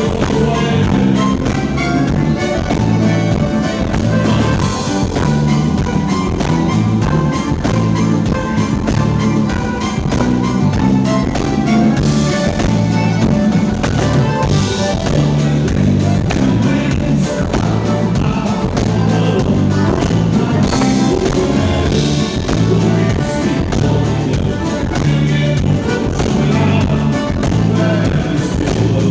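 Band music with drum kit and guitar over a steady beat.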